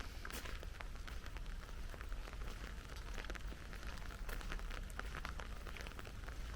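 Steady autumn rain with many separate drops ticking irregularly close by, over a steady low rumble.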